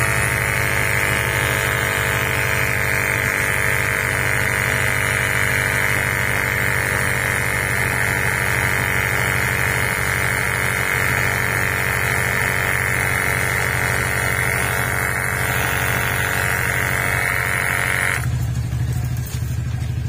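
A compact 12V portable tire inflator (air compressor) runs steadily while pumping up a flat scooter tire, then cuts off about 18 seconds in, with the tire at 26 psi. Under it, the scooter's single-cylinder engine idles, keeping the battery voltage up for the pump.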